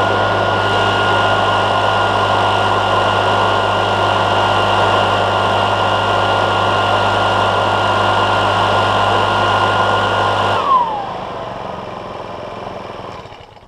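ER90 valveless pulse jet with its conic ring (flame holder) removed, running with a loud, steady low buzz. The owner says it runs that bad without the ring. About eleven seconds in the pulse jet cuts out suddenly, a whine sliding down in pitch as it stops, then a quieter rush of air that fades away.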